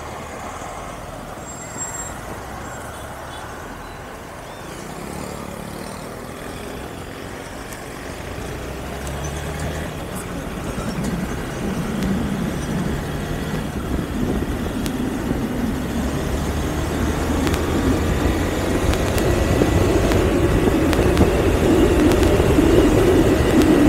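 Honda Bros 160 single-cylinder motorcycle engine, quiet at first while the bike waits in traffic, then pulling away and running along the road. Wind rush on the microphone builds as speed rises, getting steadily louder toward the end.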